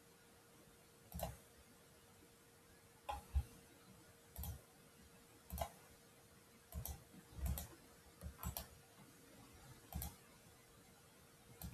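Computer mouse clicking, about ten faint sharp clicks at irregular intervals, some in quick pairs, over a faint steady hum.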